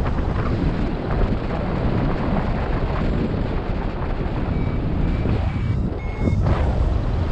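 Wind rushing and buffeting over the microphone of a paraglider in flight. A few short, high beeps come about halfway through.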